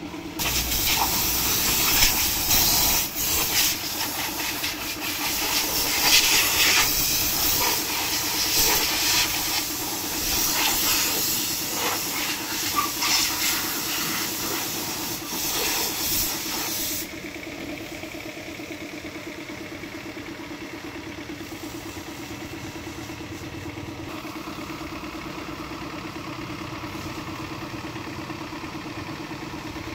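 High-pressure washer jet spraying with a loud, even hiss, cutting off suddenly about seventeen seconds in. Underneath, the washer's pump motor keeps running with a steady hum.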